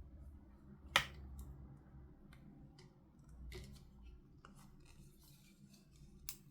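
Toy packaging being handled: small clicks and scrapes of plastic and card, with a sharp click about a second in and another near the end.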